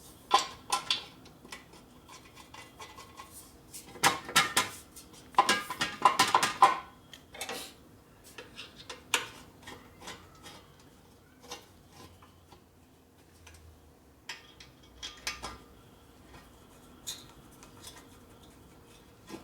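Metal clinks and rattles of bolts and hand tools being picked up and handled, in scattered bursts. The loudest clattering comes about four to seven seconds in, with single clicks after.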